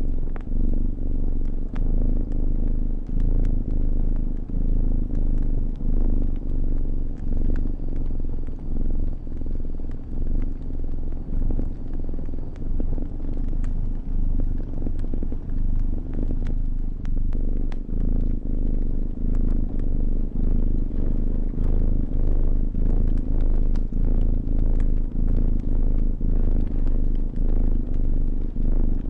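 A domestic cat purring close and steadily, swelling and easing with each breath a bit more than once a second. Small pops and crackles from a wood fire are scattered through it.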